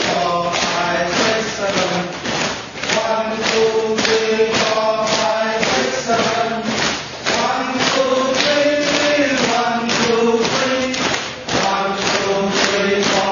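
Chanted singing with a slow melody over a steady beat of sharp taps, about three a second.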